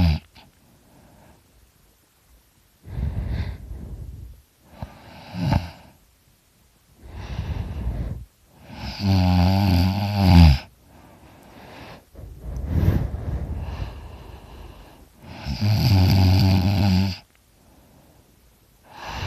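A person snoring very loud in deep sleep: a breath cycle about every six seconds, rasping breaths alternating with louder, buzzing snores of a second or two, the loudest near the middle and toward the end.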